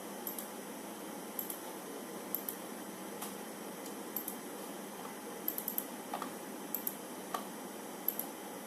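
Light, sharp clicks at irregular intervals, about a dozen, some in quick little clusters, over a steady hiss.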